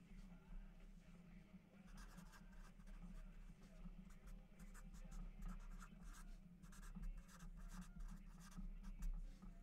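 Faint, irregular scratching and rustling of hands at work on a desk, over a steady low electrical hum.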